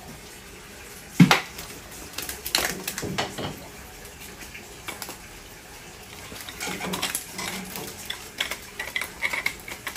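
A flounder being handled and scaled: a loud sharp smack about a second in and a few smaller knocks as the fish flaps against the floor, then from about two-thirds in a hand-held fish scaler scraping quickly and repeatedly over the flounder's skin, a rasping scratch with clicks.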